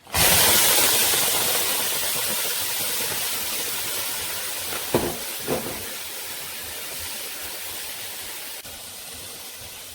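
Food sizzling in a hot pan, a hiss that starts suddenly and slowly dies down. Two light knocks come about five seconds in.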